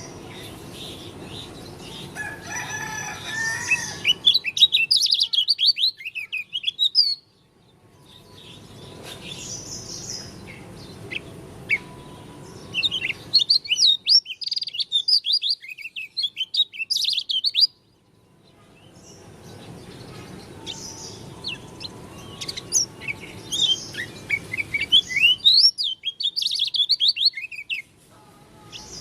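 Lombok dakun white-eye (pleci) singing a fast, high twittering song of quick sweeping chirps, in three long runs that break off abruptly about 7 and 18 seconds in.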